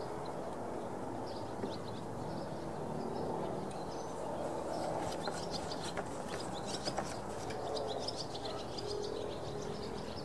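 Birds chirping over a quiet, steady outdoor background, with a scatter of short high chirps in the second half.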